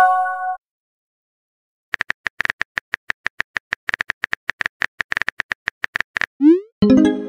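Texting-app sound effects: a short chime as a message appears, then a long run of rapid keyboard tap clicks as a message is typed, then a quick rising swoosh as it is sent, followed by a louder tone near the end.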